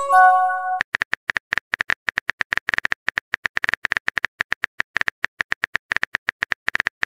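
A short text-message alert tone, a chord of a few steady notes, then a fast, steady run of phone keyboard tapping clicks for the rest of the time.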